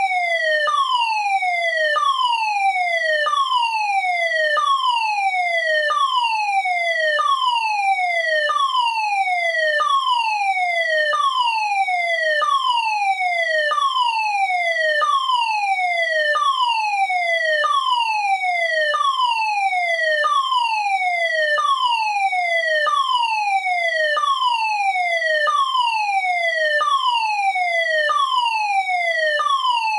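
Fire alarm sounder: a loud, repeated falling tone, each sweep dropping in pitch in under a second and starting again at once, over and over without change.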